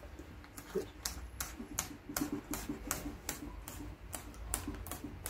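Irregular run of sharp clicks, a few a second, as self-adhesive glazing tape is pressed onto a Land Rover Series door-top frame and its backing strip is peeled away.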